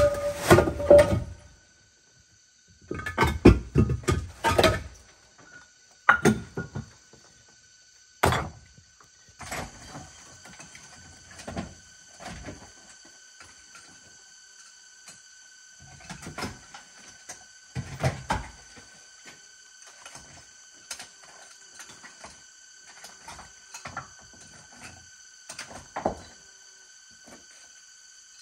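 Loose stones being moved and dropped onto other rocks: several loud clusters of knocks in the first nine seconds, then fainter scattered knocks.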